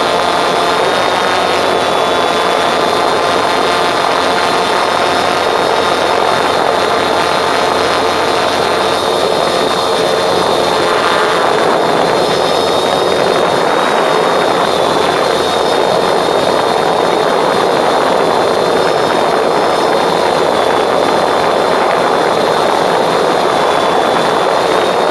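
Drone's propellers and electric motors running right beside the microphone while it hovers: a loud, steady whir with a high motor whine running through it, its tone shifting somewhat about eleven seconds in.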